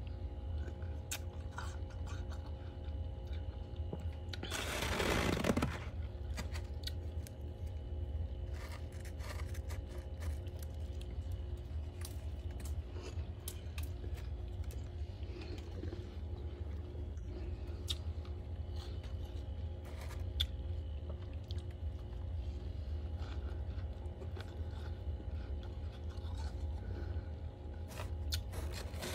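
Thick freezer frost being scraped and crunched by hand, with one louder rushing scrape about five seconds in and scattered small crunches and clicks after it. A steady low hum runs underneath.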